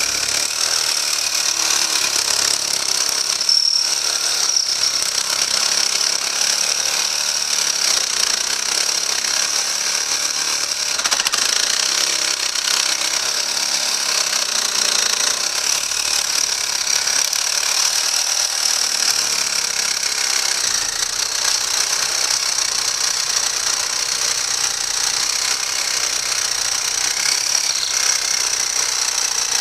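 Reciprocating saw (Sawzall) running steadily as it cuts through the plastic case of a 12-volt lead-acid battery.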